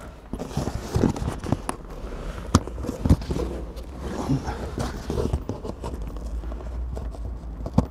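Irregular light clicks and knocks from handling loose dashboard bolts and pushing them into a piece of cardboard.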